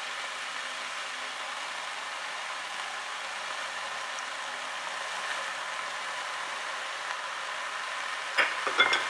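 Minced beef and vegetables sizzling steadily in hot olive oil in a pot, with blended tomato purée just added. A few sharp knocks near the end.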